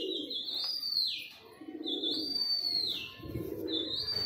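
Pigeons cooing in a repeated, pulsing rhythm, with a high whistled call that climbs in small steps and then slides down, heard three times about two seconds apart.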